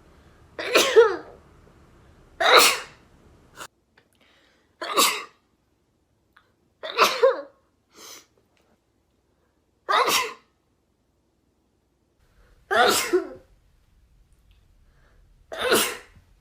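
A person sneezing seven times, each sneeze a short, sharp burst, spaced about two to three seconds apart.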